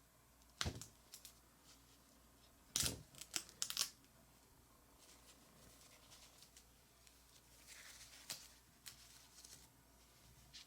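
Packaging being handled and torn during an unboxing: sharp rips and crinkles a little under a second in and again in a quick cluster around three seconds, then softer rustling later on.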